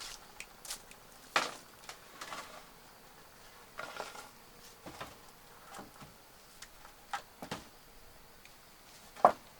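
Scattered light knocks and taps of wooden building material being handled, irregular rather than a steady hammering rhythm, with a sharper knock about a second and a half in and another near the end.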